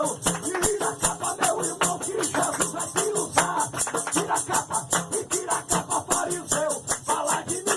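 Pentecostal worship music: a fast, even rattle of hand percussion, with voices singing underneath.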